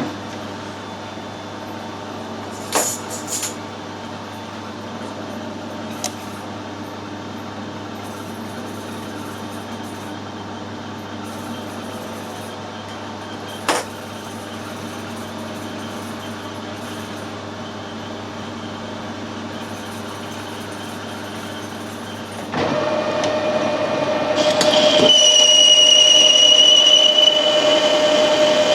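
Metal lathe running with a steady machine hum and a few sharp clicks. Past the middle it steps up louder, and near the end a high, steady whine joins in.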